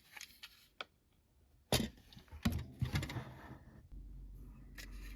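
Plastic clicks and clatter of label tape cartridges and their packaging being handled, with a sharp snap a little under two seconds in. A low steady hum sets in near the end.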